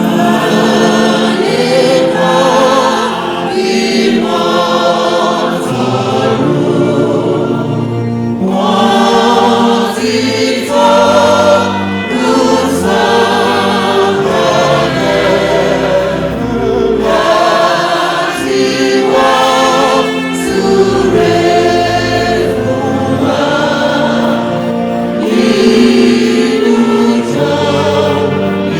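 Church choir singing a hymn in full voice over sustained accompaniment, in phrases a few seconds long.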